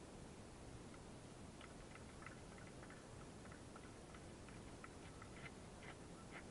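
Near silence: a steady faint hiss, with faint rapid ticking, about four or five ticks a second, starting after a second or so and growing a little stronger toward the end.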